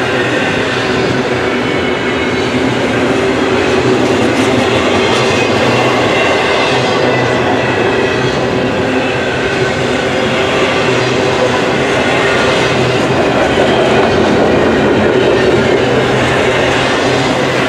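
Double-stack intermodal container well cars rolling steadily past, their steel wheels rumbling and clattering over the rails.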